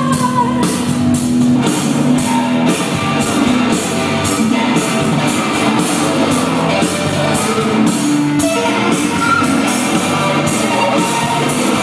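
Rock band playing an instrumental passage live, with electric guitar and a drum kit keeping a steady beat.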